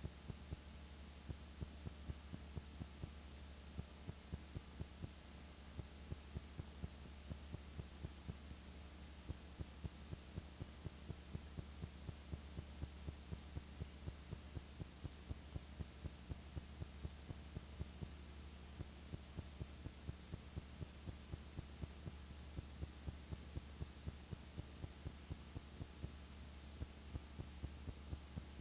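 Steady low electrical hum with faint, evenly spaced ticks about three times a second, and no other sound: the noise floor of a silent home-movie transfer.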